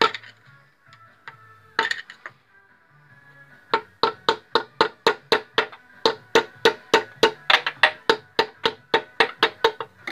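A hammer striking metal on a disassembled car engine: a few separate blows, then a steady run of about four sharp, ringing taps a second.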